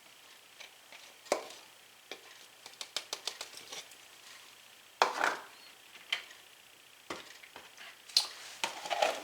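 Light knocks, taps and clatters of dishes and utensils being handled on a kitchen counter. There is a quick run of taps about three seconds in and a louder knock about five seconds in.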